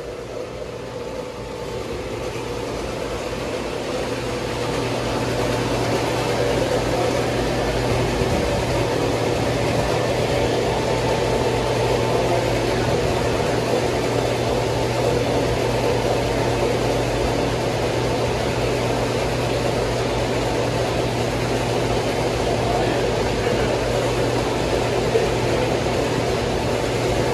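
Steady machinery noise in a chassis dyno cell: an even roar with a low hum underneath. It builds over the first several seconds, then holds level.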